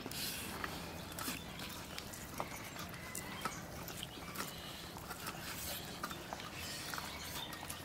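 Quiet eating sounds: scattered soft clicks and smacks of chewing, with fingers working rice and small fish on a steel plate.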